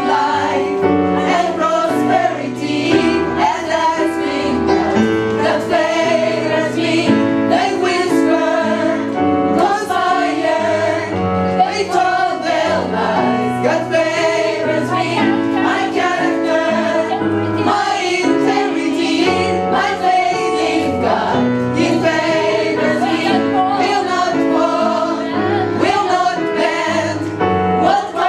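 A gospel choir and lead voices singing live with band accompaniment, over a steady drum beat.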